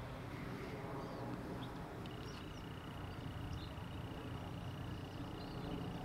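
Low, steady rumble of a distant diesel locomotive approaching, with a few small bird chirps and a thin steady high tone that starts about two seconds in.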